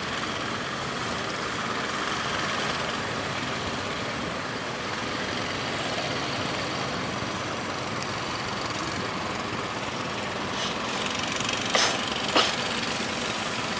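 Steady noise of fishing-boat engines running amid strong wind and waves, with two sharp knocks about half a second apart near the end.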